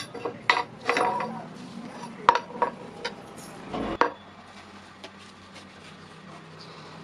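Metal clinking and knocking on metal, about half a dozen sharp strikes in the first four seconds, then only a faint steady background.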